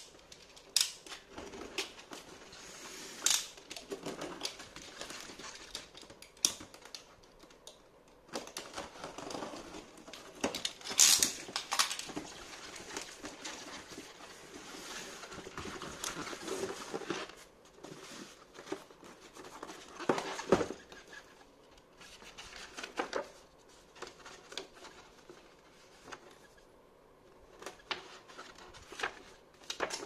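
A cardboard box being opened by hand: a utility knife cutting into it, then the cardboard flaps being pulled back and the cardboard and paper inside handled. The result is irregular scraping, rustling and clicking, with a few louder knocks.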